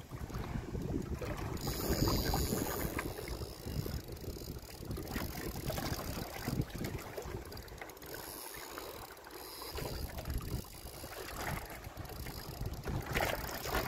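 Wind buffeting the microphone in a steady low rumble, with scattered light clicks from a spinning rod and reel being handled.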